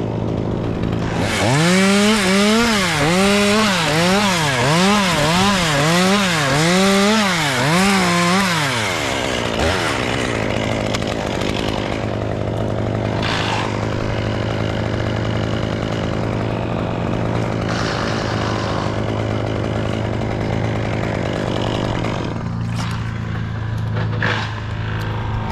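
Chainsaw at high revs, its pitch rising and falling over and over, about once a second, for roughly eight seconds, then dropping away. A steady engine hum continues after it.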